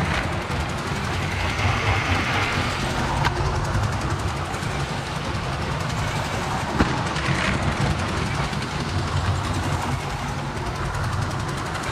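A LEGO train rolling along plastic track, heard from a camera riding on it: a steady rattling run with a low rumble. There are sharp clicks about three seconds and about seven seconds in, as over track joints or points.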